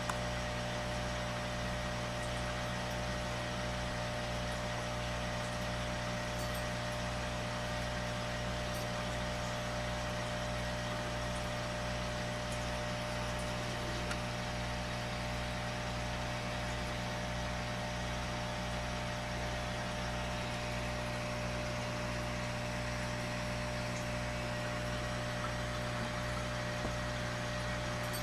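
Steady low mechanical hum with a faint regular pulsing in the bass.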